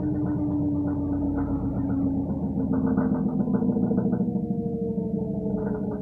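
LG washing machine spinning down near the end of its cycle: the motor's whine glides slowly lower in pitch as the drum slows, over a fast pulsing rumble. The sound eases off after about four and a half seconds.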